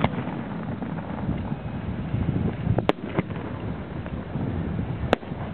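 Fireworks display: a steady rumbling wash of noise, with sharp bangs about three seconds in and again about five seconds in.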